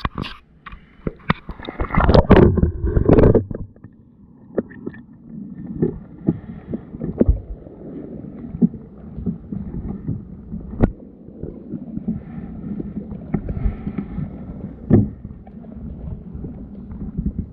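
Muffled water sloshing and gurgling around a camera under water, with many irregular knocks and bumps. A louder rush of water comes about two seconds in and lasts a second or so.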